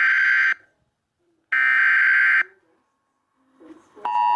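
Emergency Alert System SAME header, a harsh digital warble sent in short data bursts. One burst ends about half a second in and a second one follows a second later. Near the end the steady two-tone EAS attention signal starts, announcing a warning.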